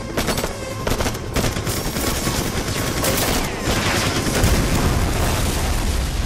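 Movie-soundtrack gunfire: several sharp shots in the first two seconds, then a dense, noisy stretch of firing with a heavy low rumble that peaks past the middle.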